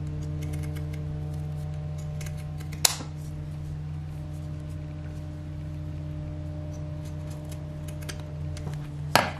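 Pinking shears (zigzag-blade scissors) snipping through thin leather: faint repeated snips, with a sharper snap about three seconds in and another near the end, over a steady low hum.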